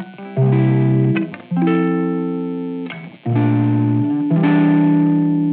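Background music: four slow chords on a plucked string instrument, each struck about a second apart and left ringing as it fades.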